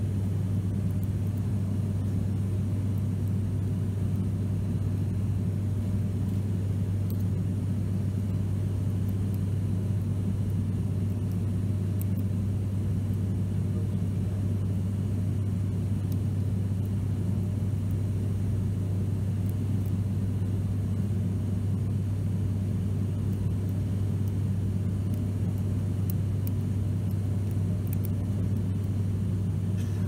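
Cabin noise of an ATR 72 turboprop airliner in flight: the propellers' incredibly loud, steady drone with a strong low hum.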